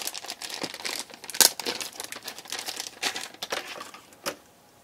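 Packaging crinkling and rustling as it is handled and opened, with many sharp irregular clicks and a loud crack about a second and a half in; it dies down near the end.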